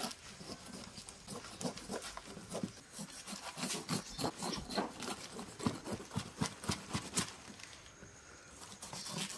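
Knife cutting lengthwise through a whole J33 jackfruit's spiky rind, a run of short, irregular crackling cuts as the blade works down through the fruit.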